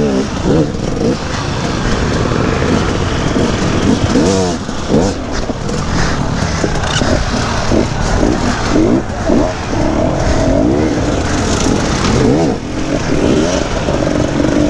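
Several off-road motorcycle engines revving in repeated short blips, their pitch rising and falling and overlapping, as bikes struggle over a rock and log obstacle.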